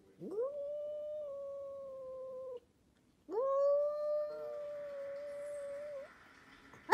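Cat yowling as two cats face off through a window: two long, drawn-out yowls, each sweeping up quickly and then held at a steady pitch for two to three seconds.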